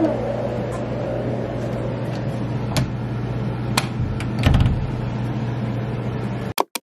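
A steady hiss with a low hum runs underneath. Near the end a door is pulled shut by its knob: a few clicks and a soft thump about four and a half seconds in. The sound then cuts off abruptly.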